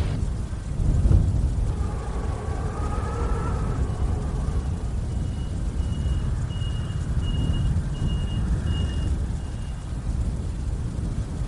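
Gusty wind rumbling heavily, with a faint wavering howl between about two and four seconds in. From about four seconds there is a run of about eight short, evenly spaced high beeps from a vehicle's reversing alarm.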